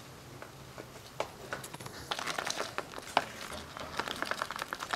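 Spoon beating cream in a small stainless steel bowl: quick ticks and scrapes of the spoon against the metal. A few ticks come at first, then a fast, uneven run of them from about two seconds in.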